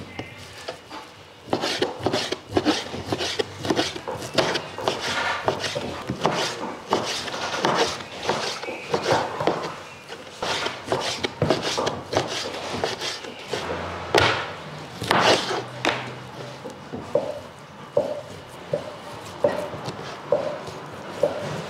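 Large kitchen knife slicing raw lamb and knocking against a wooden chopping block, a dense run of irregular cuts and thuds. In the last few seconds the strokes settle into an even knocking, a little over one a second, as the meat is diced.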